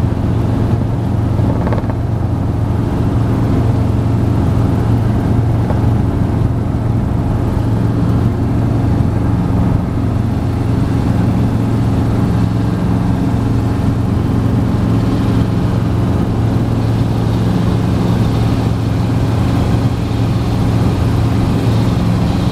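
Robinson R22 helicopter's piston engine and rotor running steadily in flight, heard from inside the cockpit as an even, constant low hum.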